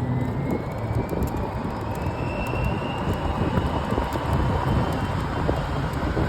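Golf cart accelerating flat out: its motor whine rises steadily in pitch for the first few seconds, then levels off at top speed, over a steady rumble with small rattles.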